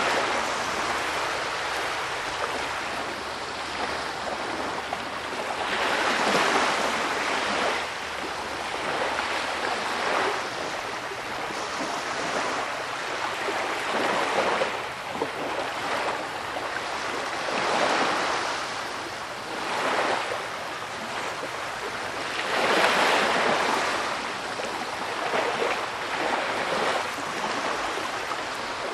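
Ocean surf washing onto a sandy beach, swelling and fading every three to five seconds.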